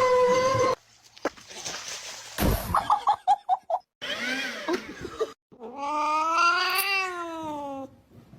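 Cat yowling, several drawn-out caterwauls. The longest comes near the end, rising and then falling in pitch.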